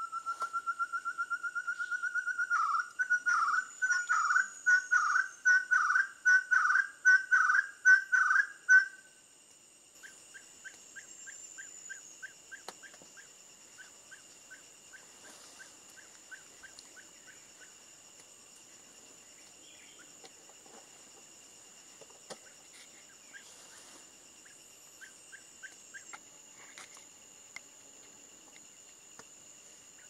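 Ferruginous partridge singing: a long run of rapid whistled notes climbing slowly in pitch, breaking into louder repeated phrases about two a second that stop about nine seconds in. Fainter repeated notes follow, over a steady high-pitched hum.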